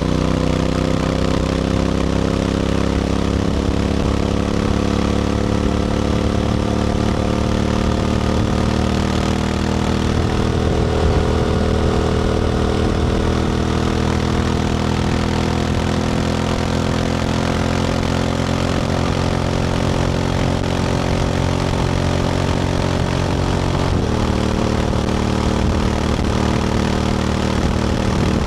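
Honda X-ADV 750's parallel-twin engine through an SC-Project titanium slip-on exhaust, pulling steadily on the move, its pitch slowly rising over the first ten seconds. About 24 seconds in the pitch drops in one sudden step, as at a gear change, with wind noise under it throughout.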